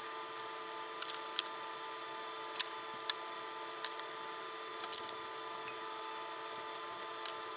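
Scattered light clicks and taps of small wires and hand tools being handled, about eight in all, over a steady electrical hum.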